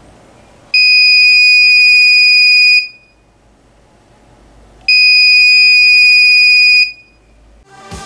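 Small piezo buzzer in a BC547 reed-switch alarm circuit sounding two steady, high-pitched beeps of about two seconds each, a couple of seconds apart. Each beep is the alarm triggering as the magnet is moved away from the reed switch.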